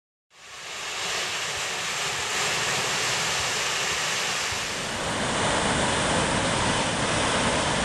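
Ocean surf breaking and washing onto a sandy beach: a steady rush of waves with some wind on the microphone, fading in at the start.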